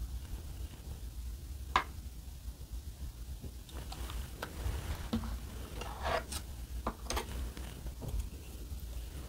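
Close-miked tableware handling: red pepper paste is squeezed from a small paper cup onto a plate of vegetables, with one sharp click about two seconds in. From about four seconds in come scattered light clicks and rustles as wooden chopsticks work at a plate of flat dumplings, over a low steady hum.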